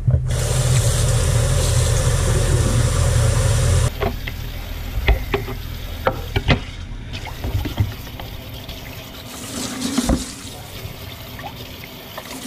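Kitchen faucet running into a sink, rinsing freshly skinned turrs: a loud, hard rush of water for the first four seconds, then a thinner stream splashing over the carcasses. Scattered knocks and taps from handling the birds and a knife in the sink.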